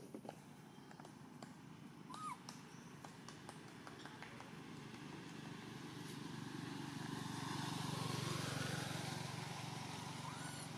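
A motor vehicle passing: its engine hum grows louder to a peak about eight seconds in, then fades. A few short chirping calls and small clicks sound over it.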